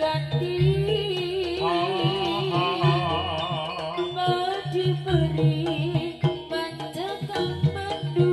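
Live East Javanese jaranan music: drumming under a lead melody whose pitch wavers and slides.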